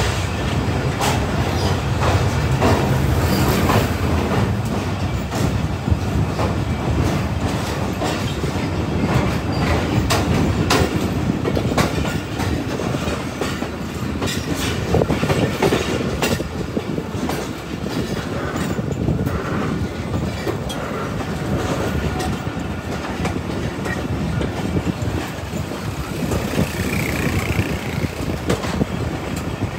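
Pakistan Railways passenger train running, heard from on board: a steady rumble of wheels on the rails, with irregular clicks from the rail joints.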